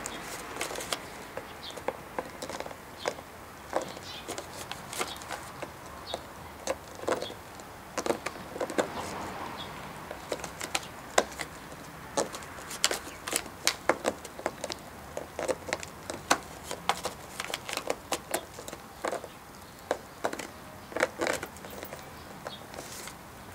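Shiba Inu chewing on a plastic drink bottle held between its paws, working at the cap with its teeth. The plastic gives irregular sharp clicks and crackles, some loud, some faint.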